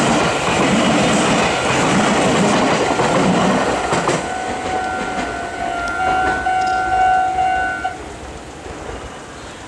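A Meitetsu train passes over the level crossing with loud rumble and wheel clatter for the first four seconds. The crossing's warning bell then rings on steadily and stops about eight seconds in, once the train has cleared.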